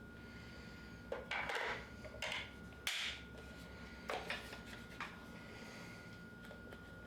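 Hands handling small plastic parts: five or six short rustles and clacks spread over several seconds.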